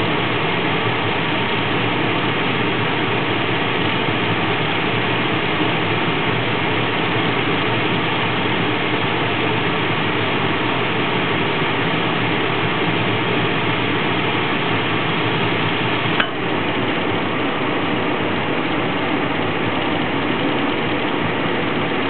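Lennox G12 gas furnace running: a steady, even rush from the lit burners and blower. One sharp click sounds about sixteen seconds in.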